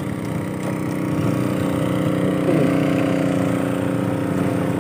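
Motorcycle engine running at steady revs, a little louder after about a second.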